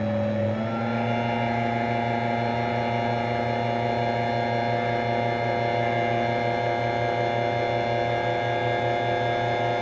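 Hydraulic press's pump motor running with a steady, many-toned hum as the punch deep-draws a silver disc through the die. Its pitch dips briefly at the very start, then holds steady under load.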